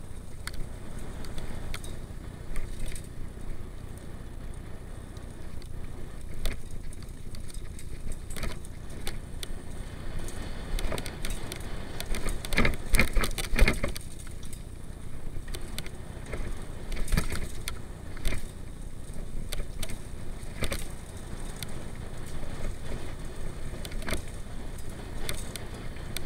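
Mountain bike riding down a rough dirt and rock trail: a steady low rumble of tyres and wind on the microphone, with frequent clicks and rattles as the bike bounces over roots and rocks, and a dense run of loud knocks about halfway through.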